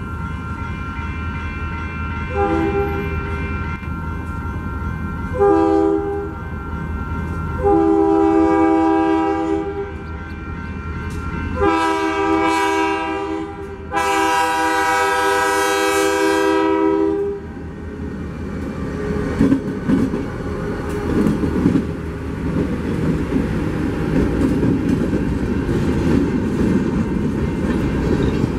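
Multi-tone train horn sounding four blasts (two short, then two long, the last held about six seconds and growing louder), over the steady low rumble of a locomotive. After the horn, the train rolls past, wheels rumbling with scattered clicks over the rails.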